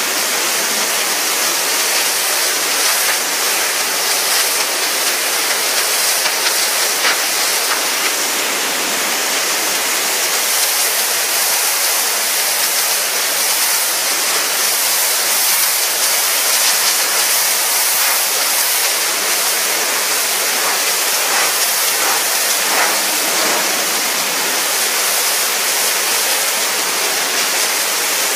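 Pressure washer jet blasting water onto paving slabs, a loud, steady hiss and spatter as it strips the dirt off the patio.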